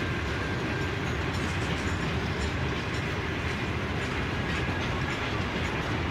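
Loaded grain hopper wagons of a freight train rolling past on the track, a steady rumble of wheels on rail.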